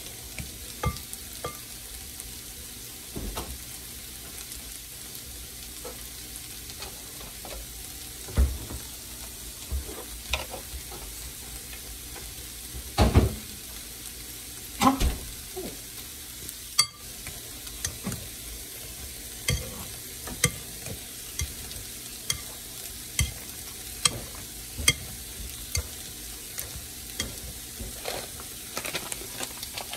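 Wire potato masher working boiled potatoes in a bowl: irregular soft thumps and knocks every second or two as it presses down, the loudest a little past halfway. Under it a steady faint sizzle of onions and green pepper frying in a pan.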